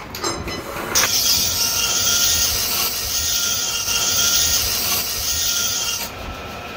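Flat hand file held against a steel spur gear turning in a metal lathe, giving a steady rasping hiss from about a second in until near the end, over the lathe's running.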